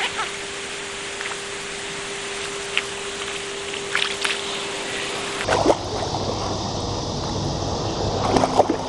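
A hooked common carp thrashing in shallow water at the angler's feet as it is landed by hand, with several sharp splashes over a steady watery hiss.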